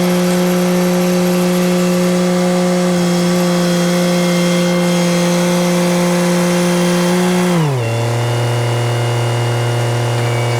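An engine running steadily at raised speed, then dropping smoothly to a lower idle about three quarters of the way through and holding there.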